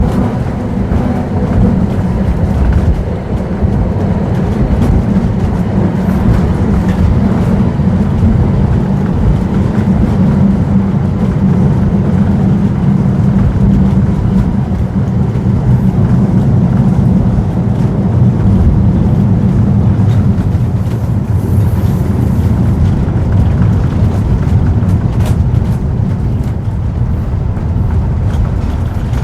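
Historic tram running along its rails: a loud, steady low rumble with a few faint clicks.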